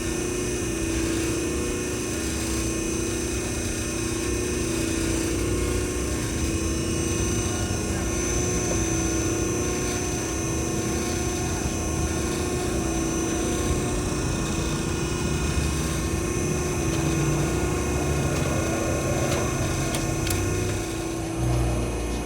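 Steady mechanical drone of a machine running, a pulsing hum under several steady whining tones.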